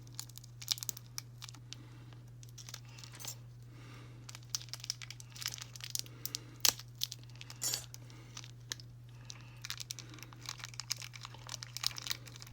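Scattered small clicks and crinkly rustles of hands handling small plastic craft pieces and packaging, with a steady low hum underneath.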